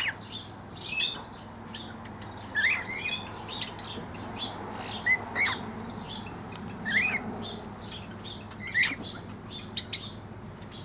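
Birds in a mixed aviary chirping: short rising chirps every second or two over a scatter of quicker, higher twitters.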